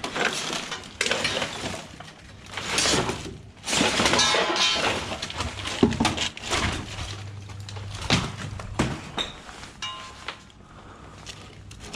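Scrap being rummaged through and pulled about by hand: a run of knocks, clatters and scrapes.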